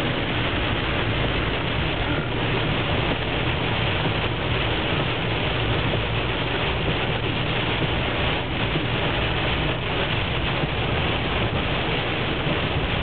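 Hail and rain clattering steadily on a moving van, a dense patter of many small hits over the low rumble of the tyres running on the hail-covered highway.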